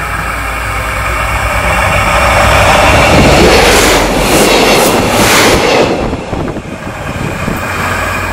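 A train passing close by: a rushing rail noise that swells, peaks around the middle with a few regular beats from the wheels, and drops away about six seconds in.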